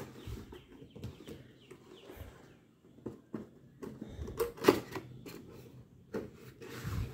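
Cardboard box being handled and opened: light rustling and scraping, with a couple of sharp taps about four and a half seconds in.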